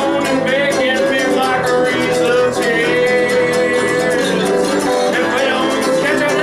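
Live acoustic music: guitars strummed in a steady rhythm while a man sings into a microphone, his voice holding and bending long notes.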